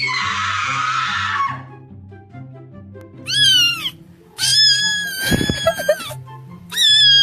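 Cat meows and yowls over looping background music. A harsh noisy burst comes first, then a short meow that rises and falls, then two long drawn-out cries.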